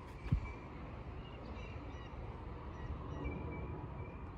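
Quiet outdoor ambience: faint distant birds calling in short chirps now and then over low steady background noise, with a brief low thump about a third of a second in.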